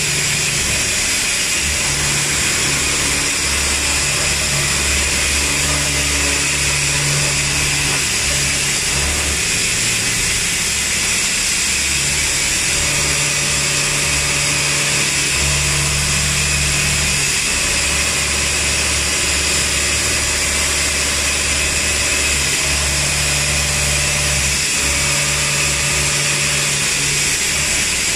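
CNC machining centre milling a metal melamine mug mould die, its spindle and cutter running with a steady high-pitched whine and cutting noise. A low hum comes and goes every few seconds as the tool moves through its passes.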